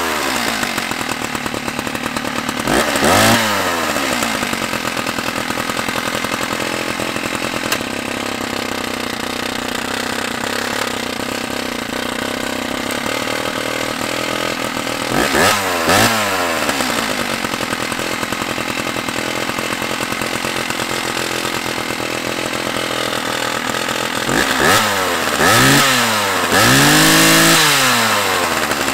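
Stihl 056AV's 81cc two-stroke chainsaw engine idling, blipped up to high revs and back several times: once a few seconds in, twice in quick succession around the middle, and a cluster near the end, the last rev held for over a second. The saw is running on a freshly replaced electronic ignition module, being warmed up to test whether it still cuts out once hot.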